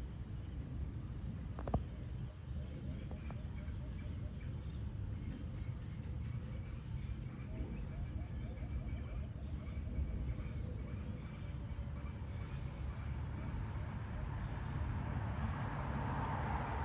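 Evening outdoor ambience: insects trilling steadily in a high, even chorus over a low rumble. There is a single sharp click about two seconds in. A broader rushing noise swells near the end.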